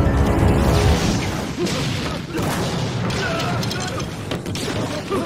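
Bomb explosion sound effect: a loud noisy blast with crackling debris from about a second in, over dramatic background music.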